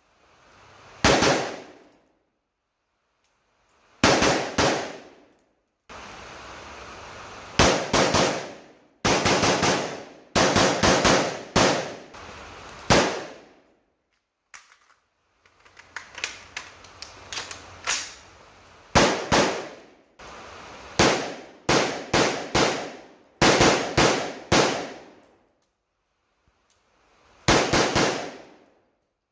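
Steyr AUG A3 M1 rifle firing 5.56 NATO on semi-automatic. It fires single shots and quick strings of several shots in a row, with pauses between groups, and each shot trails off in an echo.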